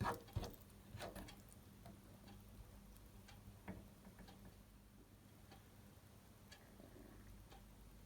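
Faint, sparse clicks and taps at uneven intervals over a low steady hum, with a few louder taps in the first second.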